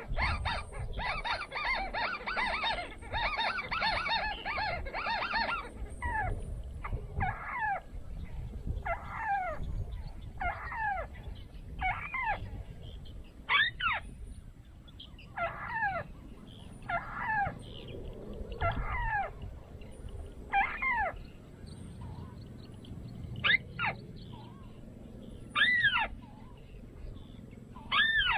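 Harsh, honking bird calls: a fast run of repeated calls for about the first six seconds, then single calls sliding downward in pitch, about one every second and a half.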